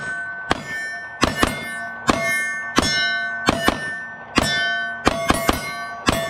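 Rapid gunfire at night, about a dozen shots with some in quick pairs and triples. Each shot is followed by the metallic ring of a hit steel target.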